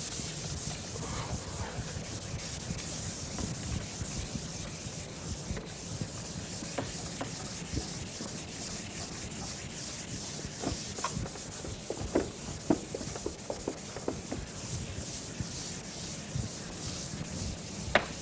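Chalkboard duster wiping chalk off a blackboard in repeated strokes, a continuous scratchy hiss, with a few short knocks in the second half.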